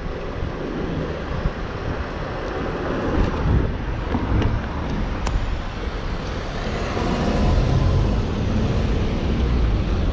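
Town street ambience: road traffic passing steadily, with a heavy low rumble throughout.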